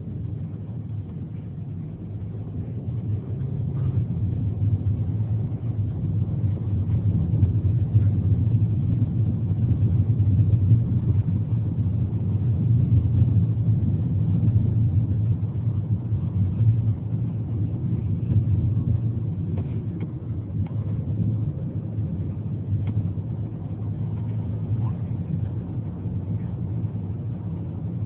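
Steady low rumble of a car on the move, heard from inside the cabin: engine and tyre noise. It grows louder a few seconds in, then eases off in the second half.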